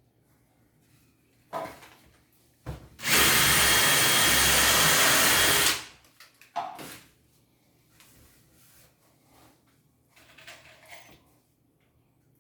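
Power drill running steadily for about three seconds, starting and stopping abruptly. A few short knocks come before and after it.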